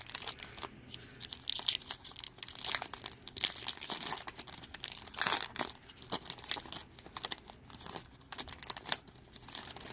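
Plastic-foil wrapper of a Topps baseball card pack being torn open and crinkled, a dense run of irregular crackles.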